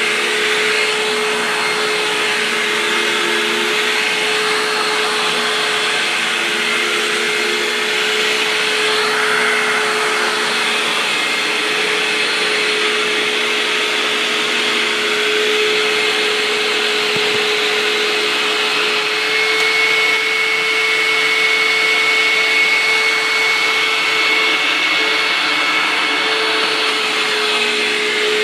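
Hoover WindTunnel upright vacuum cleaner running steadily, its motor giving a constant whine over the rush of air. A thin, higher whistle joins about two thirds of the way through and fades near the end.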